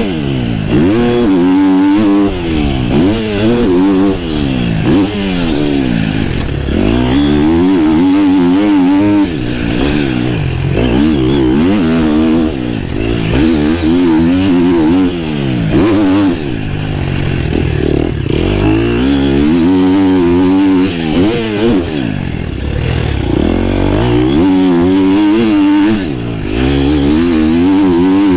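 KTM motocross bike's engine heard from on board, revving up hard and dropping back again and again, every second or two, as it is ridden through the corners and straights of a dirt track.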